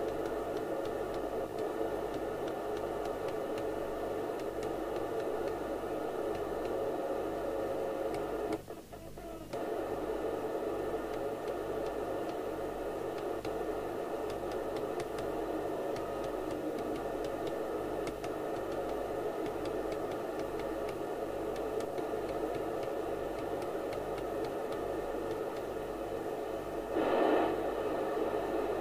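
Domico Convoy 1 27/81 FM CB radio receiving with squelch open, giving a steady hiss of off-air receiver noise from its speaker as the channels are stepped. The hiss drops out for about a second around nine seconds in and swells briefly near the end.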